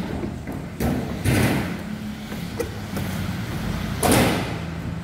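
Skateboard being handled and set down on a quarter pipe's edge: several knocks and short scrapes of the board against the ramp, the loudest a bit after four seconds in, over a steady low hum.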